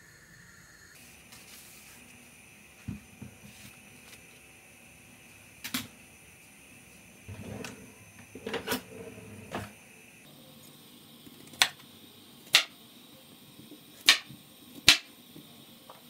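Peeled sweet potatoes being handled and set down on a plastic cutting board: scattered light knocks and rubbing, then four sharp taps in the second half.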